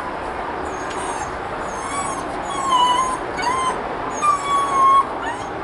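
German Shepherd puppy whining in short high whimpers. There is a cluster of them about two to three seconds in and a longer, louder one near the end.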